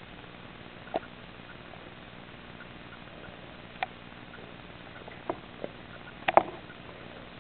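A gerbil in its shredded bedding, making a handful of separate small clicks and crackles over a steady hiss, the loudest pair about six seconds in.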